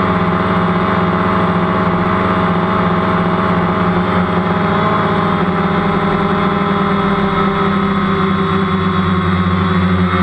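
DJI Phantom quadcopter's motors and propellers in steady flight, a loud, even hum with several held pitches, picked up by the camera mounted on the drone.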